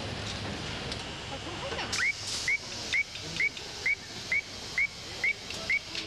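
Buzzer of a pressure-proofing test machine beeping: about nine short, high beeps, a bit over two a second, starting about two seconds in, over a steady background hiss. The beeps are the audible check that goes with the machine's pilot lamp.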